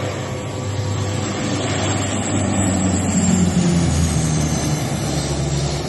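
Propeller engines of a Canadair firefighting water bomber passing low overhead. The sound swells about three seconds in, then drops in pitch as the plane goes by.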